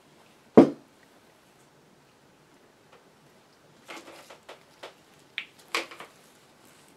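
Bench handling noise: a single sharp knock about half a second in, as a tool or part is set down, then a quick run of small clicks and rustles as parts and multimeter test leads are handled.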